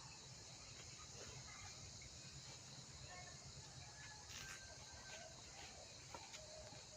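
Faint outdoor ambience: a steady high insect drone, like crickets, over a low rumble, with a few faint bird chirps.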